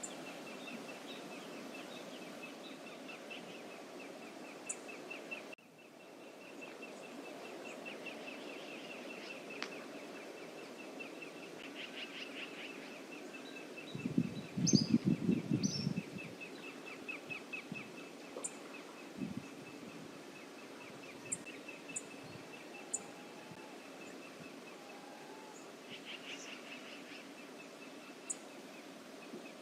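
Outdoor ambience at a seaside nest camera: a steady background rush with a fast, even chirping held at one pitch, and scattered short high bird chirps. About halfway through there is a brief burst of low rumbling, the loudest moment.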